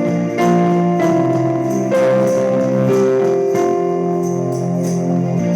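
Keyboard playing slow, sustained chords that change every second or so, as background music under prayer.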